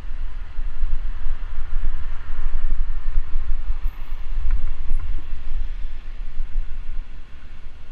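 Wind buffeting a cyclist's action-camera microphone while riding on a city road: a heavy, steady low rumble with hiss over it. A few light knocks sound in the middle, like the bike rattling over the road surface.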